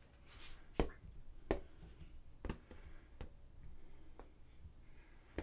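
Lumps of clay being picked up off a plaster slab and set down on a board: about six short, soft knocks, roughly a second apart.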